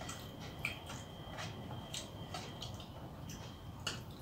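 Fingers mixing rice and curry on a metal thali: soft squishing with irregular small clicks where the fingers and food touch the plate, two sharper clicks about half a second in and near the end.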